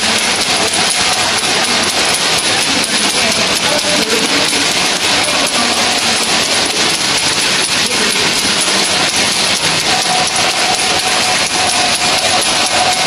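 Automatic wrap-around labeling machine running: its electric gear motor and belt drive give a steady mechanical whirring noise, with a thin steady high whine on top.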